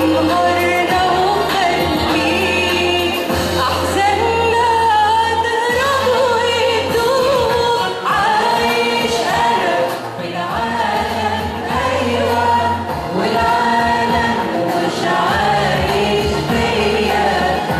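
A church choir singing an Arabic Christian hymn, with instrumental accompaniment holding long low bass notes.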